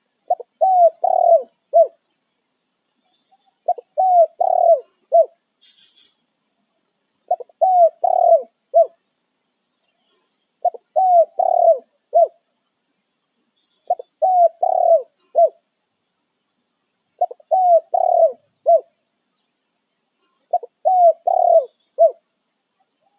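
Spotted dove (tekukur) cooing its song: seven phrases of four or five low, short coos, one about every three seconds.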